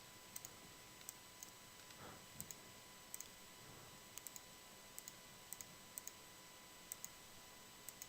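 Near silence broken by faint, irregularly spaced computer mouse clicks, about fifteen in all.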